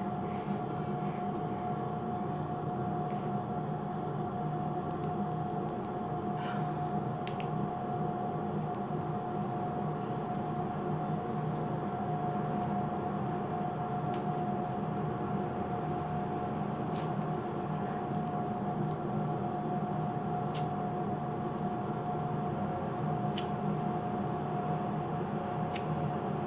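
Sugar wax being pressed onto and pulled off the skin of an underarm, giving faint sticky squishes and a few scattered sharp clicks, over a steady hum with one constant tone.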